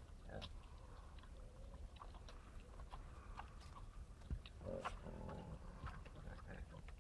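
Wild boars feeding: snout rooting and chewing in the soil, a run of small crunches and clicks, with a short grunt about five seconds in.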